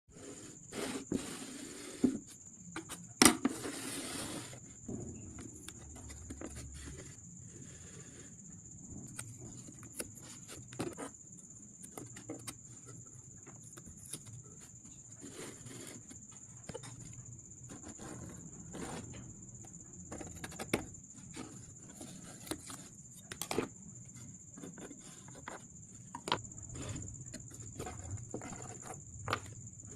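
Irregular light knocks and taps of wood being worked and handled, with a steady high-pitched whine underneath.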